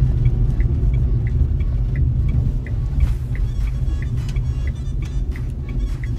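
Low, steady rumble of a Nissan Magnite driving, heard inside the cabin, with a light regular ticking about three times a second.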